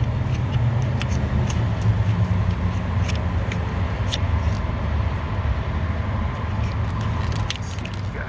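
Pliers clicking and scraping against metal in the engine bay while trying to grip the leftover piece of heater hose, a few sharp clicks over a steady low rumble.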